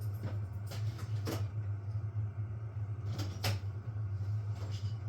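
Rummaging through a drawer: a few scattered clicks and knocks, the sharpest about three and a half seconds in, over a steady low hum.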